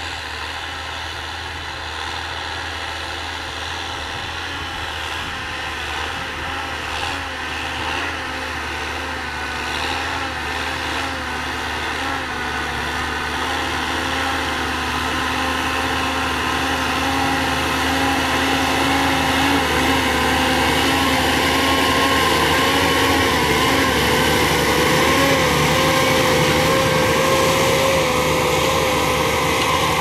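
John Deere tractor's diesel engine running steadily under load while pulling a disc harrow through dry soil, gradually growing louder.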